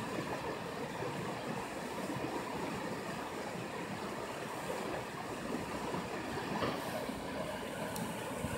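Rain-swollen creek in flood, muddy water rushing steadily past its banks.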